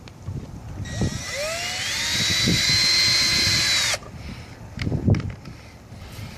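Electric drill running for about three seconds, its whine rising as it spins up, then holding steady and cutting off suddenly; a few knocks follow.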